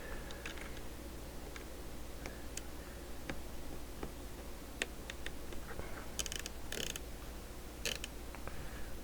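Scattered small clicks and taps with a few brief scraping rustles: hands handling a CB radio's plastic control knobs on a workbench.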